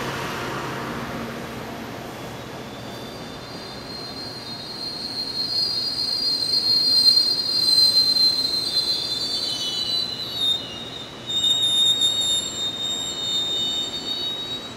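MBTA commuter rail coaches rolling past, their steel wheels squealing against the rails. A high squeal of several wavering tones sets in a few seconds in, is loudest about halfway through, and carries on over the rumble of the passing cars.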